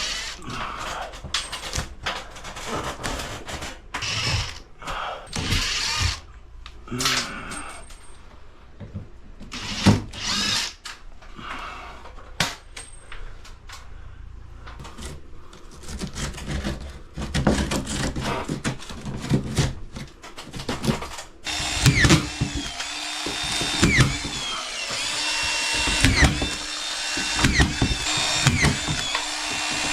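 Power drill/driver running in repeated short bursts, with pauses between them. About two-thirds of the way through it gives way to a denser, steadier run with repeated rises and falls in pitch.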